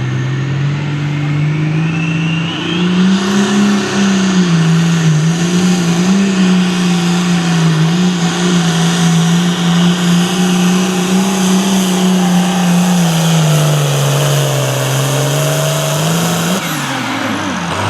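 Turbocharged diesel hot farm pulling tractor at full throttle under load. The engine climbs in pitch over the first few seconds while a rising turbo whistle spools up, then holds near steady with small surges. About a second before the end the throttle is cut and the pitch falls sharply.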